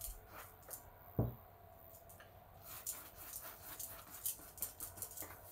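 Spalter brush swishing quickly back and forth over a fabric lampshade, blending in a coat of metallic gold paint, in short brushing strokes about three a second. One dull thump about a second in.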